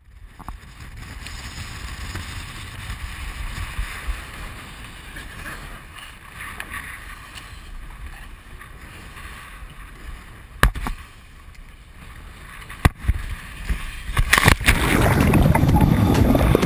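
Choppy sea water and wind buffeting a GoPro in a waterproof case, heard as a low, muffled rumble and hiss, with two sharp knocks a couple of seconds apart. Near the end it turns into a loud rush of splashing and bubbling as the camera goes under the surface.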